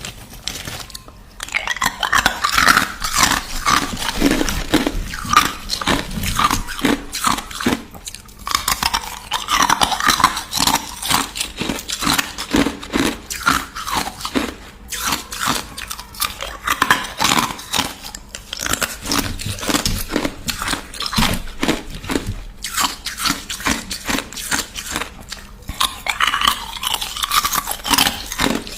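Crushed ice being chewed and crunched in the mouth, close up: rapid crackling crunches in bouts, with short pauses between mouthfuls.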